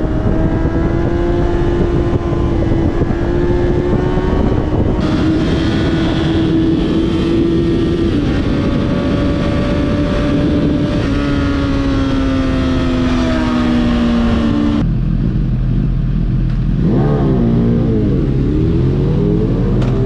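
Liter-class inline-four sportbike engine running at highway speed, its note rising slightly and then easing off, under heavy wind rush on the microphone. About 15 seconds in the wind noise drops away abruptly and the engine settles into a lower, slower note with a few dips and rises in pitch as the bike slows.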